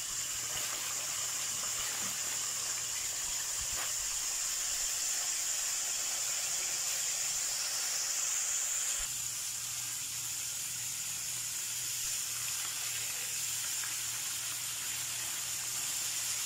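Whole tilapia deep-frying in hot oil, a steady sizzle of bubbling oil throughout. The sizzle drops a little and changes tone about nine seconds in.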